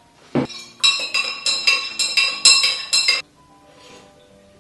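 A metal spoon stirring in a tall glass jar of milk tea, clinking rapidly against the glass about five times a second for around two and a half seconds, after one knock as the spoon is picked up.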